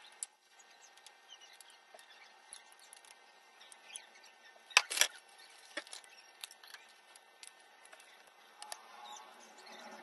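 Small handling clicks, with two sharp clicks close together about five seconds in, then a plastic chocolate-bar wrapper crinkling as it is torn open near the end.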